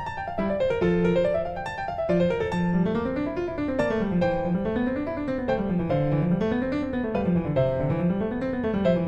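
Background piano music with rapid rising and falling arpeggios.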